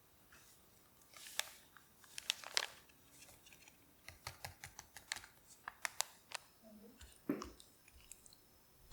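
Irregular light clicks, taps and soft crinkling from food being handled with kitchen utensils, about a dozen sharp ticks scattered through it.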